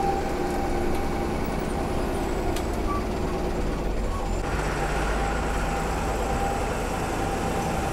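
Sleeper coach bus under way: its engine running steadily with road noise, heard from inside the driver's cabin. A higher hiss grows stronger about halfway through.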